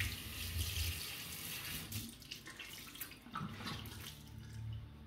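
Warm water running from a tap into a sink as a microfiber makeup-eraser towel is wetted under it. The flow dies down about two seconds in, leaving a few splashes and drips.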